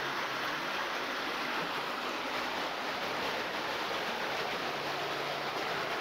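Steady rushing of flowing river water, an even hiss without distinct events.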